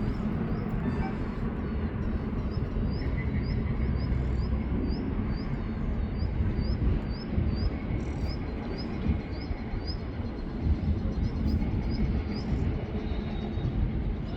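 Steady low mechanical rumble, with a short high chirp repeating about twice a second over it until near the end.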